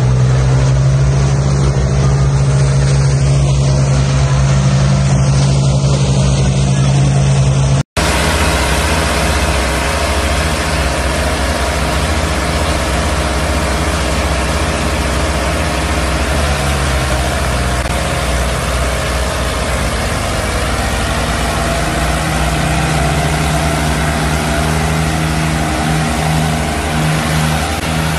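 Several New Holland 3630 tractors' diesel engines running together under heavy load as they pull a loaded sugarcane trolley through mud. The engine sound is steady, with a brief gap about eight seconds in, and the engine pitch rises a little in the last few seconds.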